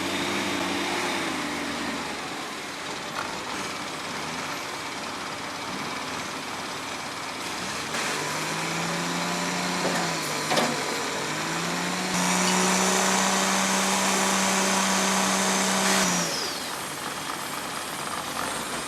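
Heavy machinery running with a steady motor hum. About halfway through the pitch drops briefly and comes back up, as if under load. A high whine joins for about four seconds near the end.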